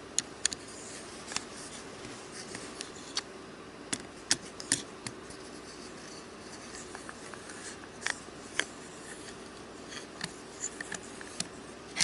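Irregular small clicks and ticks of a Ruike P801 folding knife being taken apart by hand: Torx screws being worked out and small metal parts handled and set down, a few clicks sharper than the rest.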